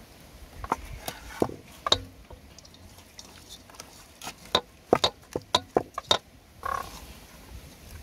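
Raw chicken pieces being placed and arranged by hand in a metal cooking pot: scattered sharp taps and knocks of meat and bone against the metal, coming thickest a little past halfway.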